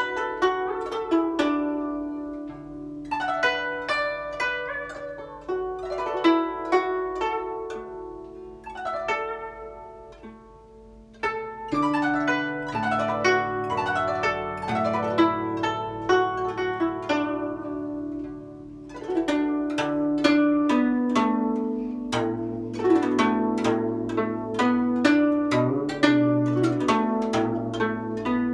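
Solo guzheng (Chinese zither) playing the piece: plucked melody notes over ringing low bass strings, with fast runs of notes. It dies down to a soft passage about ten seconds in, then picks up again with louder, busier playing.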